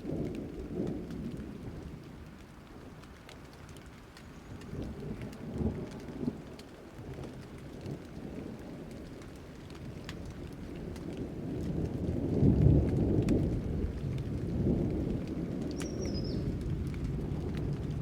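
Thunderstorm: steady rain with scattered drop ticks and low rolls of thunder, the loudest roll building about two thirds of the way through. A single short falling bird chirp near the end.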